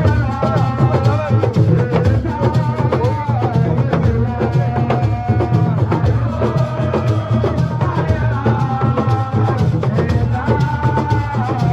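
Music: dense, fast drumming under a held melodic line that bends in pitch.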